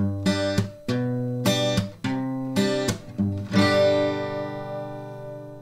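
Intro music: a rhythmic run of strummed acoustic guitar chords, ending about three and a half seconds in on a final chord that rings out and fades.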